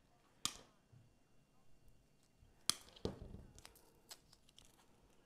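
Wire cutters snipping through the wired stems of an artificial pine spray: a few faint, sharp snips, one about half a second in and two close together near three seconds, with light rustling of the greenery after them.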